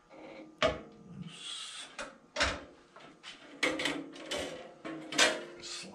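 Several sharp metal knocks and clanks from hand work on a Delta 14-inch bandsaw's upper wheel and blade while a new blade is fitted and tensioned, with a brief rubbing hiss about a second in.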